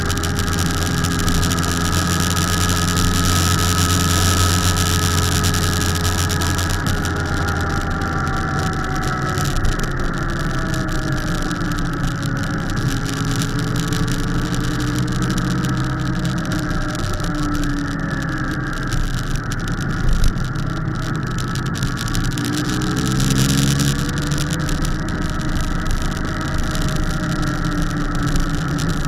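Motorcycle engine running on the move, its pitch sliding up and down with throttle and gear changes, over a rush of wind that is heavier for the first few seconds and again briefly near the end. A single short knock comes about two-thirds of the way through.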